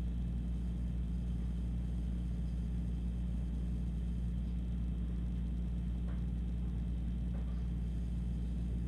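Steady low rumble and hum, with a couple of faint light clicks near the end.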